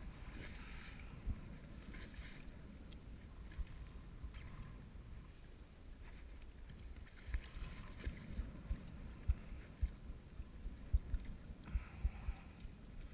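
Sea water lapping against a small boat's hull, with wind on the microphone. Irregular low knocks come more often in the second half.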